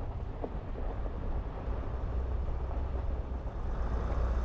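Van driving slowly over a rough dirt road: a steady low rumble of engine and tyres on gravel.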